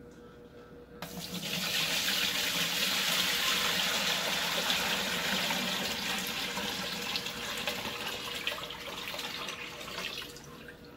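Water poured from a plastic bucket into the plastic tub of a portable single-tub washing machine, splashing onto the bottom. It starts about a second in, runs strongest for a few seconds, then eases and dies away near the end as the bucket empties.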